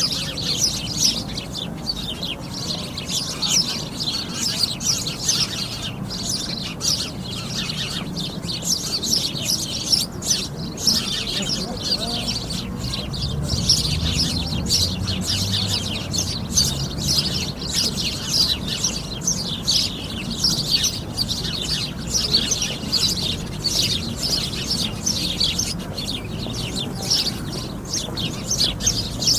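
A flock of sparrows chirping, many birds at once in a dense, continuous chatter, over a faint low rumble.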